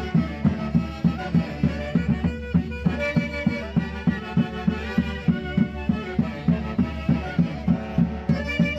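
Live Andean orquesta típica playing a Santiago dance tune: saxophones and clarinets carry the melody in several lines over a steady, evenly repeating beat.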